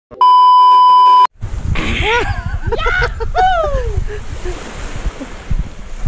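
A loud, steady test-tone beep at one pitch, the sound of a TV colour-bars test pattern, lasting about a second and cutting off sharply. Then wind rumbles on the microphone with surf, and short bursts of voices and laughter.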